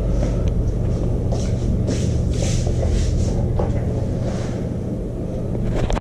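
Steady low rumble and hum, with several short bursts of hiss in the middle.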